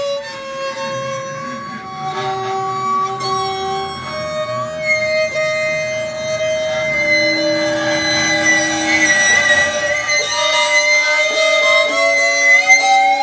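Improvised experimental music from a small ensemble that includes bowed strings: long held notes at different pitches overlap and shift every few seconds. A high held tone comes in about five seconds in, and a slow upward glide sounds near the end.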